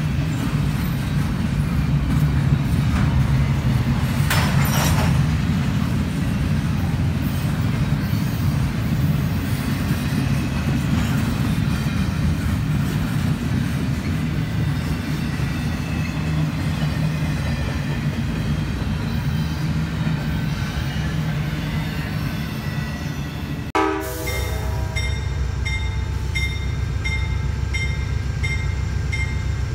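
Double-stack intermodal freight train rolling past on the near track, a steady low rumble of wheels and cars on the rails. About three-quarters of the way through this gives way to an Amtrak diesel passenger locomotive approaching, its bell ringing about twice a second over the low engine rumble.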